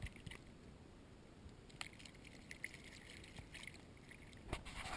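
Faint splashing and slapping in shallow water as a stingray flaps its wings off the bank and swims away, with small scattered splashes and a louder splash near the end.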